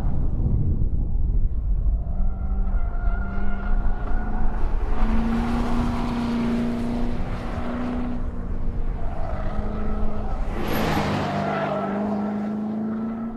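2014 Corvette Stingray's 6.2-litre LT1 V8 revving up and down as the car is driven hard through an autocross cone course. Its tyres make a rushing scrub twice as it passes close by.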